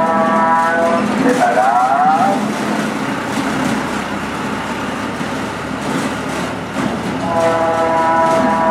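A vehicle running on the street while a horn-like call sounds twice: each time a steady note held for about a second, then a wavering, sliding tone. The second call comes near the end.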